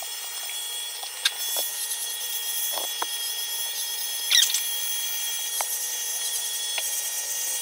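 Corded electric dog grooming clippers running with a steady motor whine as they shave a Labrador's coat. A few light clicks are heard, and a brief high squeak about four seconds in.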